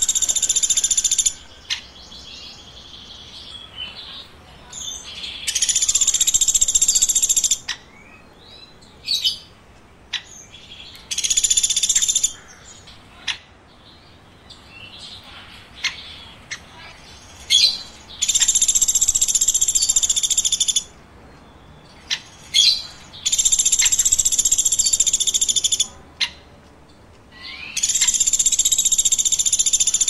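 Woodpecker calling: loud, high-pitched calls, each lasting one to three seconds, repeated about every five seconds, with short sharp single chips in between.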